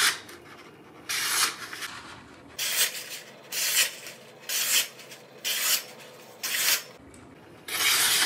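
Nakiri knife blade slicing down through a hand-held sheet of paper, about seven short cuts roughly a second apart. The cuts go through cleanly, showing the edge is already pretty sharp.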